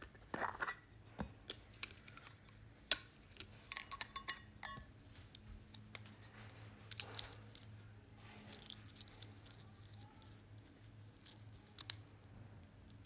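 Handling noise of small camera accessories (metal filter tins, a lens cap and a film spool) being picked up and set down on a bedspread. There are scattered clicks and fabric rustles, with a faint steady hum underneath.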